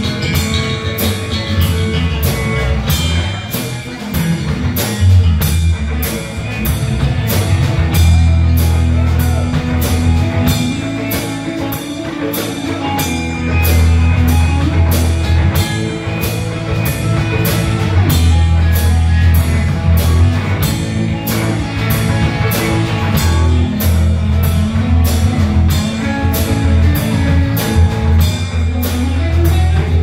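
Live rock band playing an instrumental passage: electric guitars and bass over a drum kit keeping a steady beat, with no singing.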